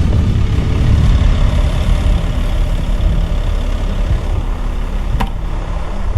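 An engine running steadily, with a short click about five seconds in.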